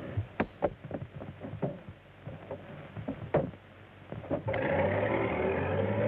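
About ten sharp, irregular knocks and clatters. Then, about four and a half seconds in, a car engine comes in suddenly and runs steadily and louder.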